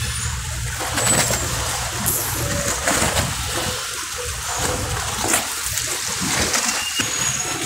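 Choppy river water sloshing and splashing, an even rushing noise with a low rumble underneath that fades out near the end.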